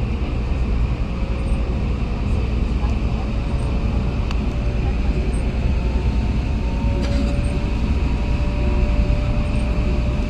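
Steady low rumble of road traffic, with faint indistinct voices in the background.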